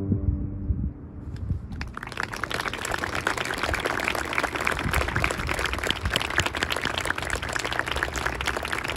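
A held orchestral string chord dies away at the start, then audience applause begins about two seconds in and continues steadily.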